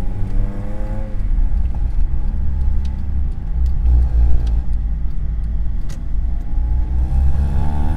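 Honda Civic Type R EP3's 2.0-litre four-cylinder i-VTEC engine pulling with climbing pitch until about a second in, then settling into a low rumble, and climbing in pitch again near the end as it accelerates once more.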